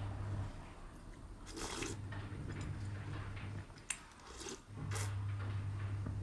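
Close-miked eating sounds: wet chewing and mouth smacks, with a few short, sharp wet smacks and a low hum underneath.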